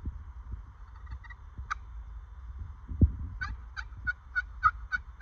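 Wild turkey yelping: a single note, then from about three and a half seconds in an even run of yelps, about three a second, that carries on to the end. A dull thump comes about three seconds in.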